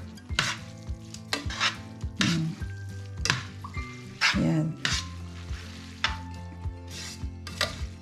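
Metal tongs tossing spaghetti in a stainless steel sauté pan, with irregular clinks and scrapes of the tongs against the pan and the swish of oily pasta over a light sizzle.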